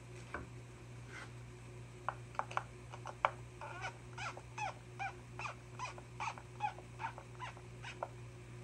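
Chain-tensioner screw on a Jonsered CS2255 chainsaw being turned with a screwdriver, the chain taking up slack on the bar. A few sharp clicks come first, then a run of short squeaks, each falling in pitch, about two a second.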